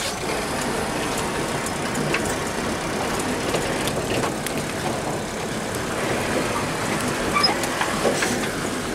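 Cabin noise of a Mercedes 208 D diesel van on the move: a steady rumble and hiss with scattered rattles and clicks.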